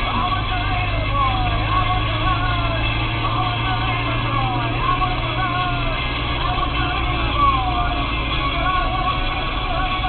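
Yugo Florida 1.3 EFI engine running steadily under way, heard from inside the cabin, with music playing over it, likely from the car radio.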